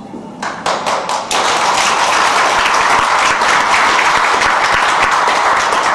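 Audience applauding: a few separate claps at first, building within about a second into steady applause that begins to thin out near the end.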